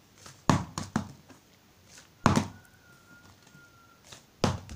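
Plastic bottle being flipped and landing on a hardcover book: a series of hollow knocks and thuds, three in quick succession about half a second in, the loudest a little after two seconds, and one more near the end.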